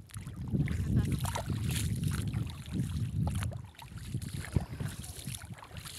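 Wind buffeting the phone's microphone, a low rumble that dips briefly about four seconds in, with a few short knocks.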